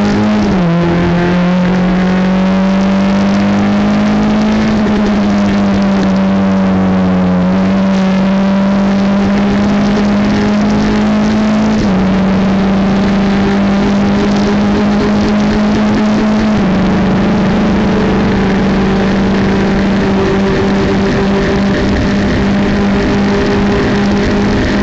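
Formula F1600 race car's four-cylinder engine running hard near 6000 rpm, heard from the onboard camera, with wind and road noise. The engine note holds a nearly steady pitch and dips briefly at each of several upshifts while the car accelerates down the straight.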